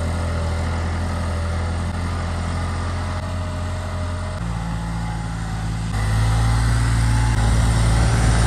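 New Holland tractor's diesel engine running steadily while it pulls a laser land leveller. The engine note shifts abruptly about four seconds in and again about six seconds in, and is louder for the last couple of seconds.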